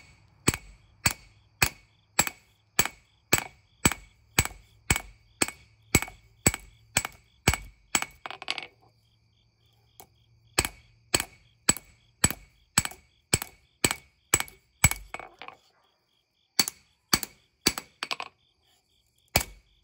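Heavy hand hammer forging hot leaf-spring steel on an anvil: steady blows about two every second, each with a bright anvil ring. The blows come in runs, with short pauses about eight and fifteen seconds in.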